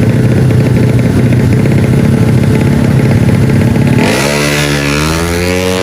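Tuned automatic-scooter racing engine running loud and rough near the start line. About four seconds in it revs hard, its pitch climbing steeply and then holding high, as the bike accelerates away.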